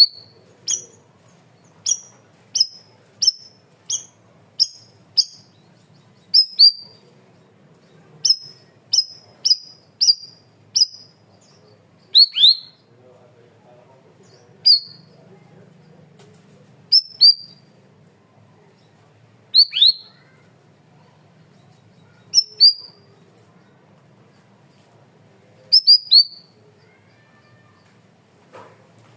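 Cucak rawis (bayeman) songbird calling in sharp, high, clipped notes: an even run of about one and a half a second for the first six seconds, then pairs and single notes spaced a few seconds apart, some slurring quickly downward.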